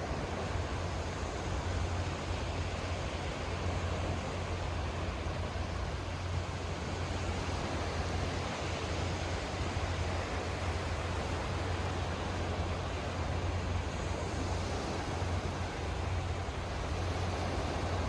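Sea surf washing steadily: a continuous rushing noise with a strong low rumble underneath.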